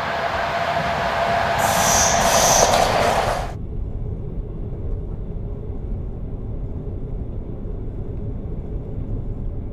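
Passenger train passing, its running noise growing louder, with a high squeal joining it about two seconds in. The sound cuts off abruptly at about three and a half seconds to a steady low rumble, as heard riding inside a train carriage.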